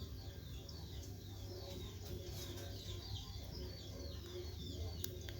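Faint, repeated bird chirping over a low steady hum, with a sharp click near the end.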